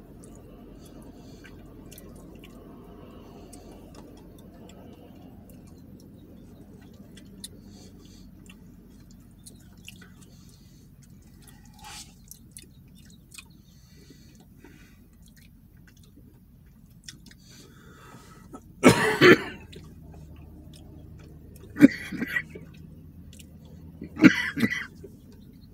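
Close-up eating sounds: quiet chewing and small spoon clicks over a low steady hum. Three loud coughs come in the last third.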